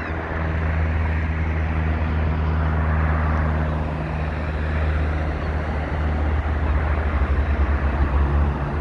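Aeroplane passing with a steady engine drone, its pitch dropping just at the start, over a low rumble.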